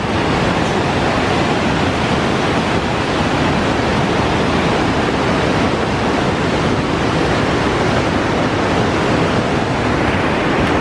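Whitewater rapids of the Niagara River rushing past close by: a loud, steady noise of churning water with no break.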